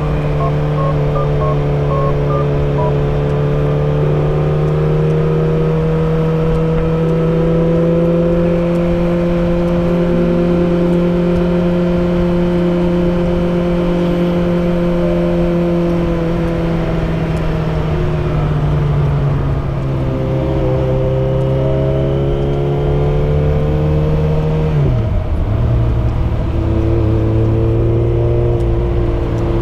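Yamaha XJ6's 600 cc inline-four running through a Dominator GP full aftermarket exhaust with dB killer, cruising at steady revs. The engine eases off after the middle, and near the end its revs fall sharply and then hold steady at a lower pitch.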